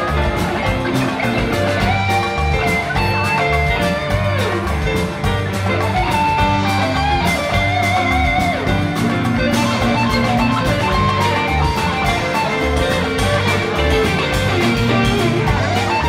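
Live rock band jamming instrumentally: an electric guitar plays a lead line with bent, wavering notes over a steady drum beat and low bass notes.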